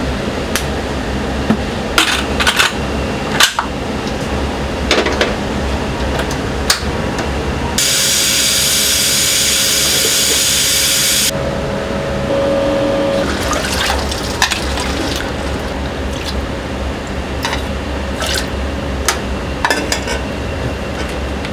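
Kitchen work sounds: scattered clinks and knocks of utensils and dishes over a steady background hum. About eight seconds in, water runs hard for roughly three seconds, as from a tap filling a container.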